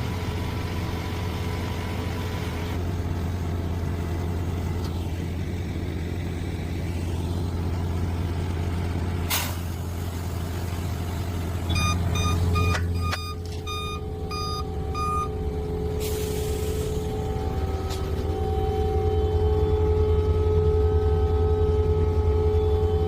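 Concrete pump truck's diesel engine running steadily, with a run of warning beeps, about two a second, partway through and a short hiss of air just after. The engine runs louder and harder near the end.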